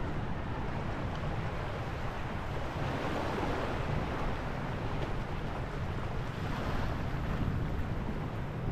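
Wind buffeting the microphone over choppy water, with a low rumble under the sound of small waves washing and lapping, which swells twice.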